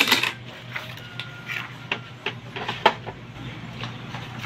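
Epson L3150 inkjet printer's mechanism clicking and knocking at irregular intervals during a failed print attempt, with a sharper knock near the end.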